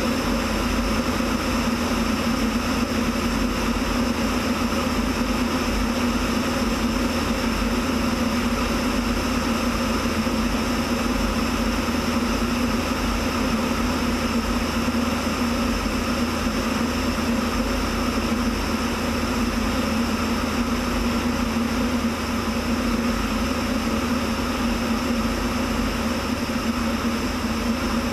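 Light aircraft's engine and propeller running at a steady drone in level flight, with wind rushing over the camera.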